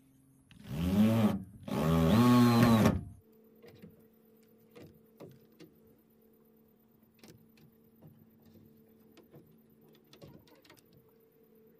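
Small electric power tool run in two short bursts, its motor whine rising and falling in pitch each time. Faint scattered light taps follow over a low steady hum.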